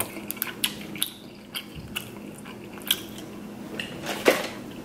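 Close-up eating of king crab legs: chewing, with scattered clicks and crackles as the shell is pulled apart. A louder single knock comes about four seconds in.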